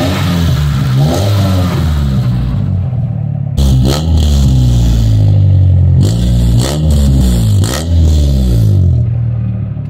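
Freshly rebuilt Honda D16Z6 1.6-litre SOHC VTEC four-cylinder revved several times through its stock exhaust. The revs climb and drop back, with a sharp blip about three and a half seconds in, and the engine settles toward idle near the end.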